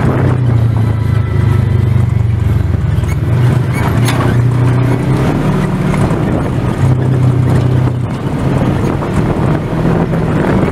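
Side-by-side off-road vehicle's engine running steadily as it drives along a rough dirt trail, heard from inside the vehicle, its low note shifting slightly with the throttle.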